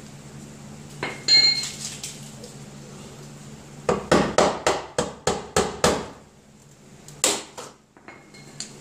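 Metal-on-metal knocks on a 1984 Chevy pickup's sheet-metal cab corner as the spot-welded panel is worked loose with a flat-head screwdriver. One ringing clink comes about a second in, then a quick run of about eight sharp knocks at about four a second, and a single knock near the end.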